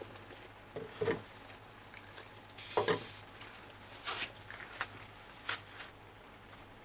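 Saucepan of water with an RC car tyre in it coming back to the boil on a hob, bubbling and sizzling, with a few separate knocks and clatters.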